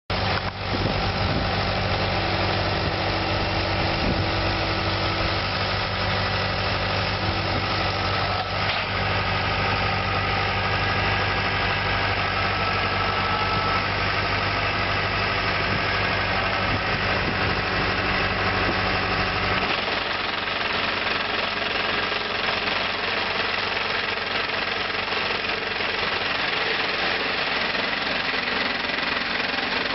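A tractor-mounted sod harvester at work: the tractor's diesel engine runs steadily under the continuous clatter and rattle of the harvester's cutting head and conveyor. The deep engine drone fades about twenty seconds in, leaving mostly the machinery clatter.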